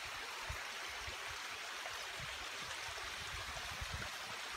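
Small creek running, a steady rushing of water, with soft low thuds underneath.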